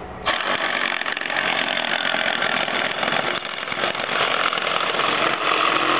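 Cordless reciprocating saw cutting into a wooden pallet, starting just after the beginning and running steadily at full speed.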